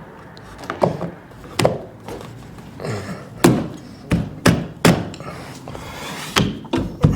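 A new PVC trim-board window ledge being knocked down into place: about nine sharp knocks at uneven intervals, some coming in quick runs of two or three.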